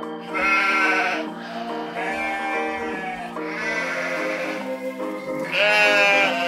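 Alpaca calling four times, each call about a second long, over background music.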